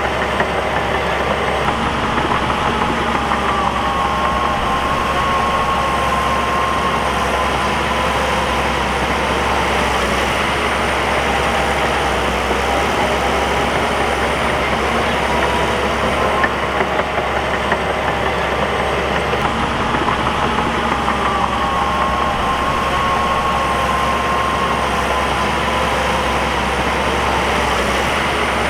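Bulldozer's diesel engine running steadily, with a whining tone that rises and falls slowly twice.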